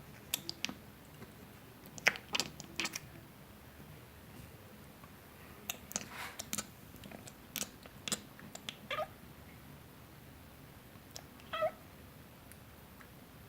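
Kitten chattering at birds: spells of short, rapid clicks mixed with brief chirps, and one last short chirp near the end.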